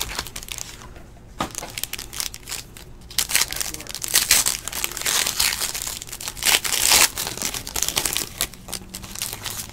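Foil trading-card pack being torn open, its wrapper crinkling and crackling in a dense run of rustles that is loudest in the middle seconds. A couple of light clicks come before it, in the first second or two.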